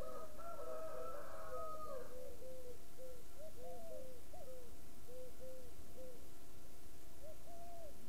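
A chorus of animals calling in short, mellow, arching notes that overlap thickly for the first two seconds and then thin out to scattered single notes. A steadier, higher whistle-like call sounds over them for the first two seconds.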